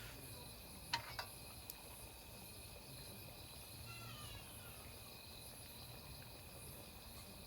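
Crickets and other insects trilling steadily in the background, with two sharp clicks about a second in.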